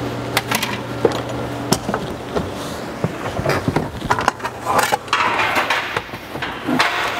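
Knocks, clicks and rustling as a person climbs up into a semi-truck cab and settles into the driver's seat, with a couple of short hissing rustles near the end over a steady low hum.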